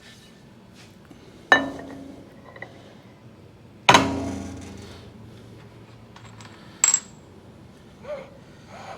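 Heavy metal parts clanking down on a metal surface twice, each strike ringing and dying away, then a short sharp metallic clink.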